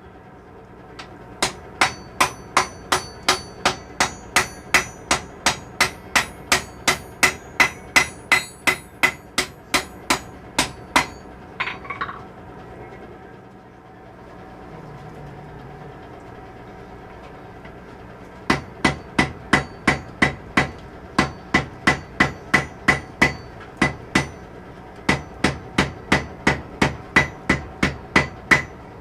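Blacksmith's hammer striking hot steel on an anvil while forging tong blanks: runs of ringing blows, about three a second. The blows stop for several seconds in the middle, then start again.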